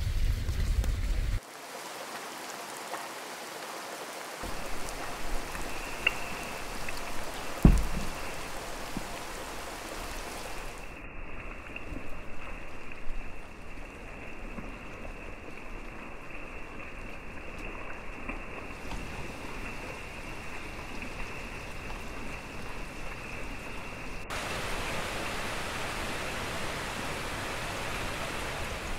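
Rain falling on forest foliage, a steady hiss of drops. A low rumble fills the first second or so, and a single dull thump comes about eight seconds in.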